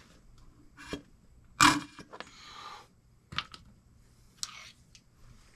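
Handling noises from a plastic squeeze bottle of oil being emptied into a truck's wheel hub to lube the bearing, then put aside: a few short knocks and scrapes, the loudest about one and a half seconds in, with a brief hiss after it.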